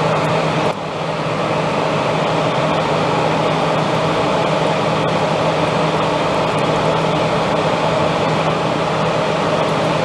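Steady cabin noise of a Boeing 787 Dreamliner in flight: an even rushing with a constant low hum underneath.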